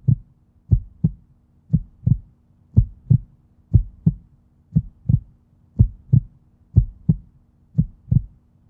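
Heartbeat sound effect: a low double thump, lub-dub, repeating steadily about once a second over a faint steady hum.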